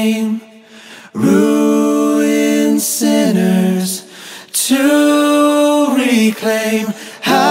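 Unaccompanied singing voice holding long, slow notes in phrases, with short breaks between the phrases.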